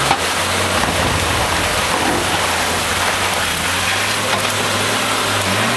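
Off-road 4x4 engine idling steadily under a constant hiss of rain, the revs rising just before the end.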